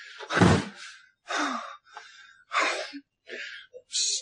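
A person gasping and breathing hard in a string of ragged, strained breaths after a physical struggle, with one loud thump about half a second in.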